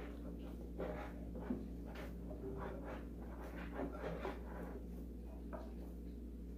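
Hands mixing and kneading damp, crumbly masa dough of corn and wheat flour in a glass bowl: faint, irregular squishing and rubbing that thins out after about four seconds.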